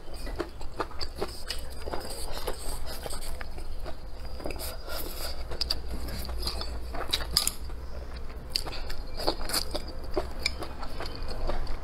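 Close-miked eating sounds: a person biting and chewing fried green chili peppers and rice, with many small irregular crunches and mouth clicks.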